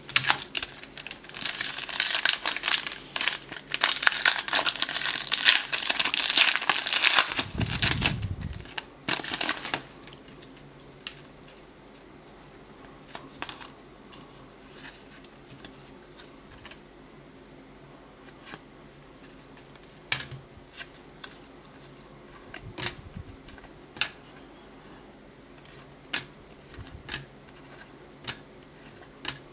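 Foil trading-card pack crinkling and tearing open for about the first ten seconds. Then the cards are flicked through one by one, with soft scattered clicks and slides.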